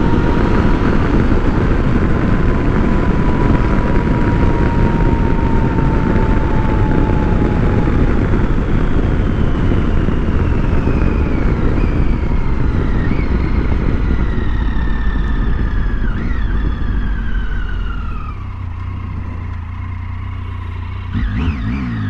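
Triumph Tiger 800's three-cylinder engine under way at road speed, with a dense rush of wind. Over the second half the engine note falls as the bike slows, and near the end the rush drops away, leaving the engine running low.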